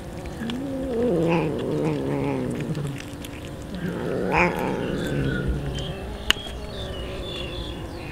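A cat growling over raw fish while eating: two long, low, wavering calls, the first starting about half a second in and the second about four seconds in. A single sharp click follows near the end.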